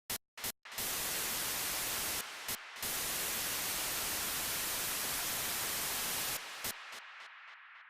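Static hiss that clicks on in two short blips, runs steadily with a couple of brief dropouts, then thins to a narrower, duller hiss and fades away near the end.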